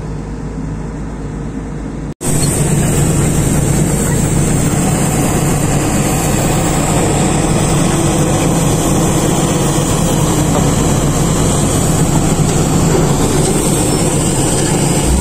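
Komatsu long-arm excavators' diesel engines running steadily. A cut about two seconds in is followed by a louder, steady engine noise with a hiss over it.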